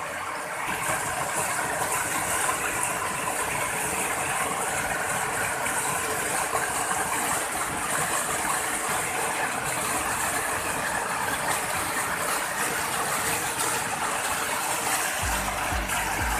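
Steady rushing of a waterfall: an even hiss of falling water that does not change. Music with a bass beat comes in near the end.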